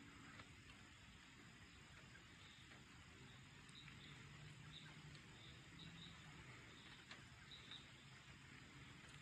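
Near silence: faint background ambience with soft, high chirps scattered through the middle.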